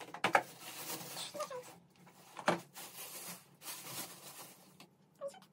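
Belongings being taken out of a suitcase and put down: two sharp knocks, one just after the start and a louder one about two and a half seconds in, with soft rustling and handling noise between.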